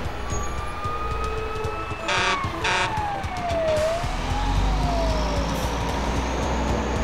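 Fire engine sound effect: a siren tone, two short horn blasts about two seconds in, then the siren's pitch falling as the truck passes, over a low engine rumble.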